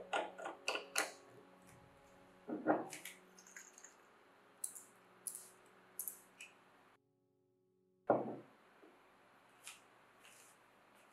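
Small clicks and taps of a spray-pump cap being fitted onto a glass bottle, then short light splashes of liquid moving in the bottle as it is tilted, and one sharp knock a little after eight seconds in as the glass bottle is set down on a wooden table.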